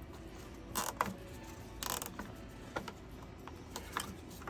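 Nylon cable tie pulled tight with short ratcheting zips, about one and two seconds in, then light clicks of plastic parts and wiring being handled inside an opened upright vacuum.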